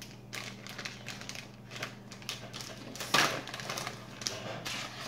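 Plastic bait package crinkling and crackling as it is handled and pulled open, in irregular bursts, loudest about three seconds in.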